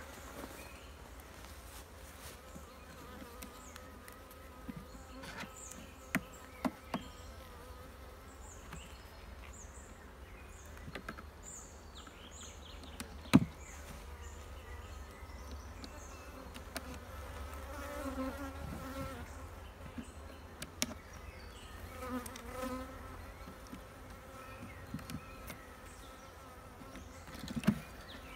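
Honeybees buzzing steadily over an open hive's frames, with a few short knocks from the hive being worked, the sharpest about halfway through.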